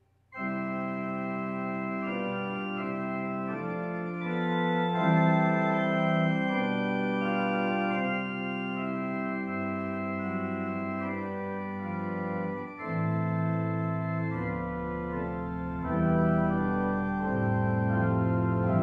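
Organ playing a slow piece of sustained chords that begins just after a brief silence, with a deep pedal bass joining about three-quarters of the way through.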